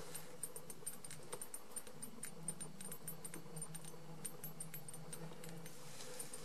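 Magnetic ballast of a 20 W fluorescent lamp fitting humming steadily, with irregular small clicks and crackles from the failing tube and its starting circuit as the end-of-life tube struggles to strike.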